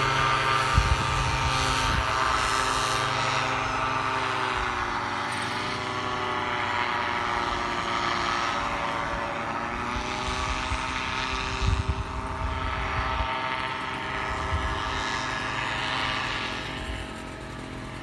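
Paramotor engine and propeller running steadily, its pitch dipping twice as the throttle eases and then rising again, with wind buffeting the microphone. The sound drops in level near the end.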